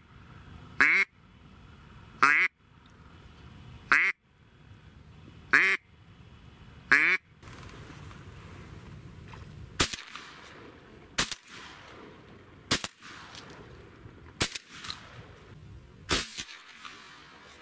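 Hand-held duck call blown by a hunter, six single drawn-out quacks about a second and a half apart, followed by a few short sharp sounds at similar intervals.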